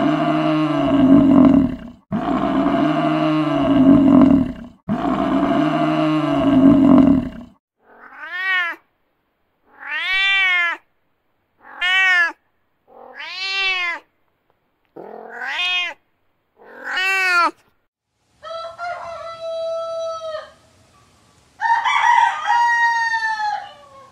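Three long, loud, low calls from an African buffalo. These are followed by a domestic cat meowing six times, each meow rising then falling in pitch. Near the end a rooster crows twice.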